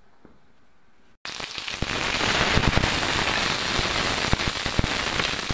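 Green chillies sizzling and crackling as they roast on a hot tava, with many small sharp pops. The sound cuts in abruptly about a second in.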